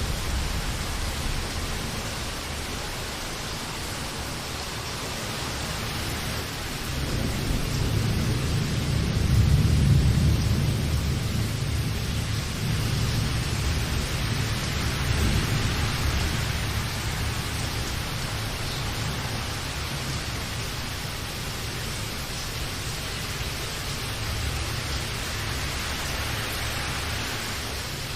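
Steady rain falling, with a long low rumble of thunder that swells about a quarter of the way in and fades away over several seconds.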